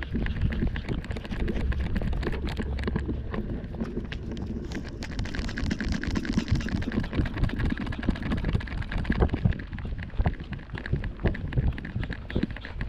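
Quick, irregular knocking and rattling of a camera mounted on a trotting Yorkshire terrier's harness, jolted with each step, with wind noise on the microphone.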